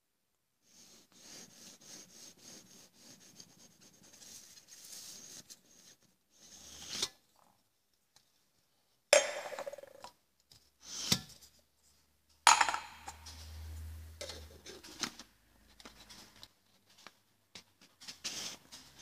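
Thin aluminium drink cans handled by hand: a 500 ml can slides and rubs inside a cut-open 330 ml can, with a few sharp metallic knocks as the cans are set down and moved on a hard surface.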